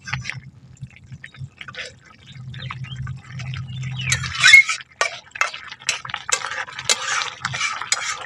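Flat metal spatula stirring a bubbling curry of fish, potatoes and elephant-foot-yam stalks in a steel karahi, the liquid sloshing and the spatula scraping and knocking against the pan, loudest about four and a half seconds in.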